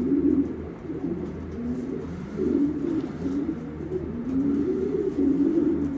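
Racing pigeons cooing continuously, several low, overlapping rolling coos.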